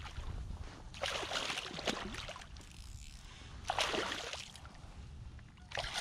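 Hooked striped bass thrashing and splashing at the water's surface as it is brought in, in three bursts of splashing: about a second in, near four seconds, and again at the end.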